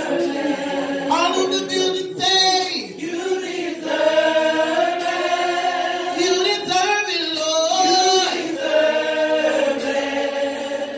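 Church choir of men and women singing together, holding long notes that move from one pitch to the next.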